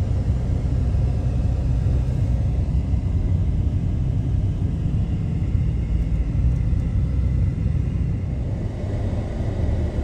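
Steady low rumble of road and engine noise from a moving car, heard from inside the cabin.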